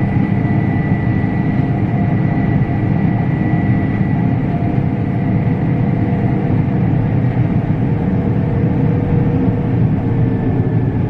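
Combine harvester running steadily in the field, a loud, even drone of engine and machinery. A thin high whine rides on it and fades away over the first few seconds.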